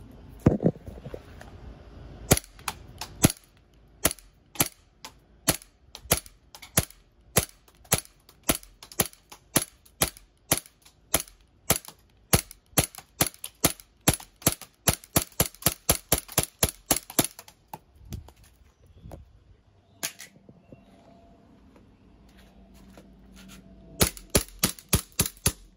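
Glock 19X replica blowback BB pistol firing shot after shot, about two to three a second, as a 50-round stick magazine is emptied into an iPhone. The shots stop for a few seconds near the end, then a quick final string follows.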